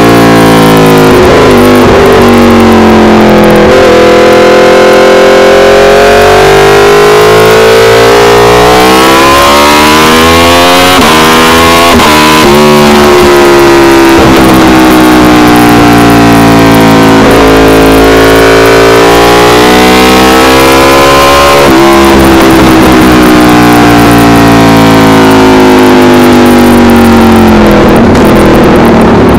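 Aprilia RSV4 Factory's V4 engine through an SC-Project CRT exhaust, loud at hard throttle. Its pitch climbs and drops sharply at each upshift, with clear gear changes about twelve and twenty-two seconds in.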